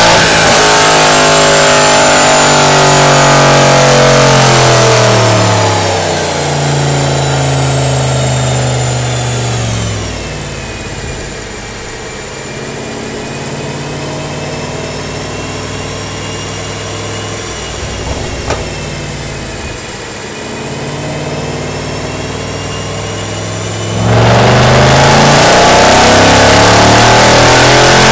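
Mercedes-Benz E63 AMG's V8 and exhaust running hard on a chassis dyno after an ECU remap: loud at high revs, then the note drops in steps and goes quieter from about five to ten seconds in as the revs come down. It holds lower and softer, with a single click about two-thirds of the way through, until the throttle opens again near the end and the note jumps back loud and rises.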